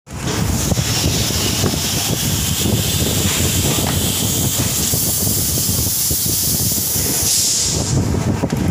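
Plastic injection moulding machine working as a moulded bucket is taken from its mould: a loud, steady hiss over a low mechanical rumble, the hiss dropping away about eight seconds in.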